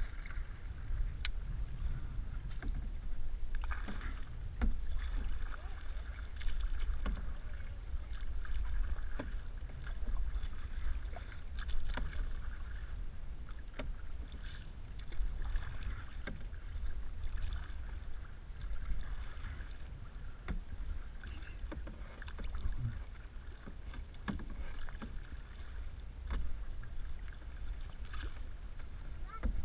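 Canoe paddles dipping and pulling through choppy lake water, a splashy swish every couple of seconds, with scattered light knocks and a steady low rumble of wind on the microphone.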